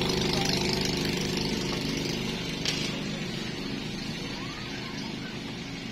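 A steady engine-like drone with a low hum, slowly growing quieter, with one faint click a little under halfway through.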